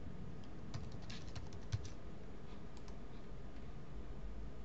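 Computer keyboard keystrokes: a quick run of key presses typing a short password about a second in, followed by a few lone clicks a second later.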